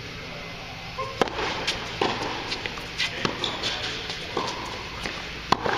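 Tennis serve and rally: the racket strikes the ball about a second in, then a string of sharp racket hits and ball bounces follows, each ringing briefly in the hall, the loudest just before the end.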